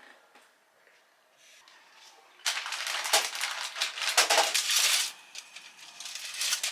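Loud rustling and rattling handling noise, many quick crackles and clicks, starting about two and a half seconds in and lasting nearly three seconds, with a shorter, weaker burst near the end.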